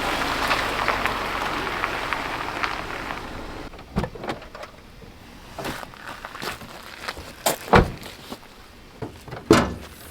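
A dense rustling noise that fades away over the first few seconds, followed by a handful of scattered knocks and thumps, the loudest two near the end.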